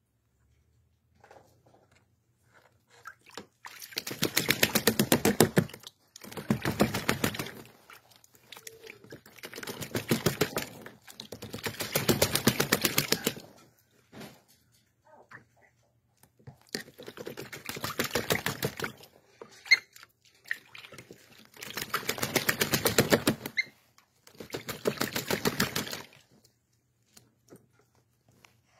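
An American oystercatcher bathing in a shallow metal pan of water, splashing hard with its wings and body in repeated bouts of rapid splashing. There are seven bouts of about two seconds each, with small drips and splashes between them.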